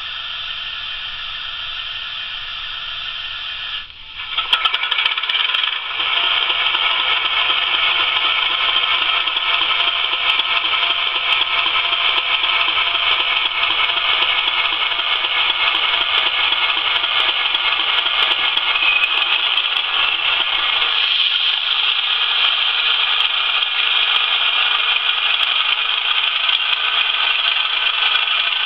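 Diesel engine sound from a Hornby Class 31 model locomotive's sound decoder, played through its small onboard speaker as a thin, steady engine drone. It drops out briefly about four seconds in, then comes back louder with a few clicks and runs on steadily.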